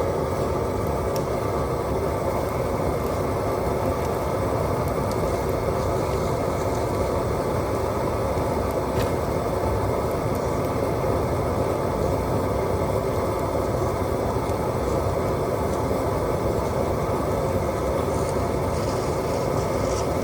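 Large brush-pile bonfire burning: a steady, even rumble with a few faint crackles of dry brush.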